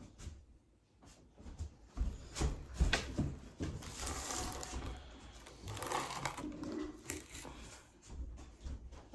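Scattered light knocks and clatter, with a rustle a few seconds in, as things are handled and set down on a table.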